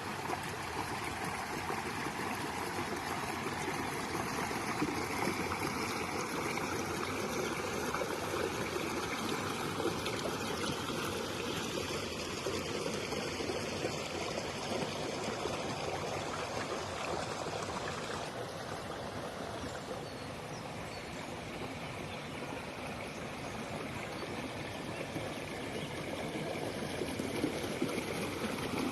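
Waterfall: a steady rush of falling, splashing water, dipping slightly in level for a few seconds past the middle.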